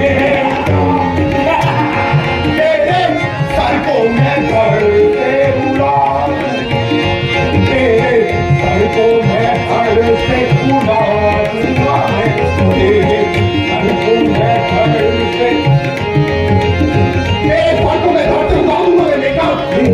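Live tabla drumming in a fast, steady run under a held melodic accompaniment, the drum-and-melody music that plays behind a Ramlila stage fight.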